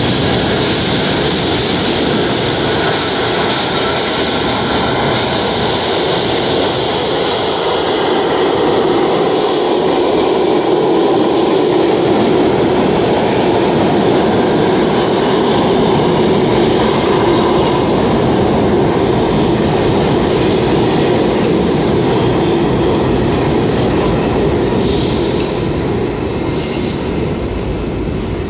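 New York City subway R68A train running into an underground station on steel wheels and rails, a steady loud noise that eases off over the last few seconds as the train slows to stop.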